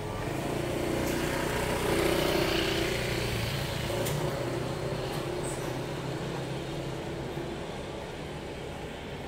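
A motor vehicle's engine running as it passes slowly close by, loudest about two seconds in and then fading away.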